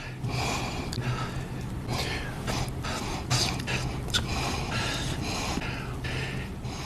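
A man's heavy breathing into a microphone, edited into a rapid string of sharp, audible inhales, sniffs and small mouth clicks with no speech between them, over a steady low hum.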